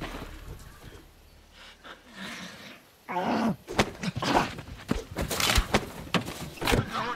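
A person's groan falling in pitch about three seconds in, followed by a quick run of knocks and scuffling thumps.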